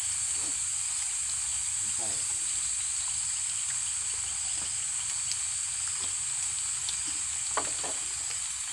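Continuous high-pitched chorus of night insects in tropical forest, steady throughout, with a brief murmur of voices twice.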